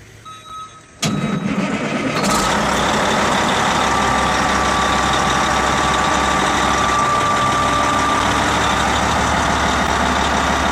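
Caterpillar D8T bulldozer's diesel engine starting about a second in, coming up to speed within another second, then idling steadily.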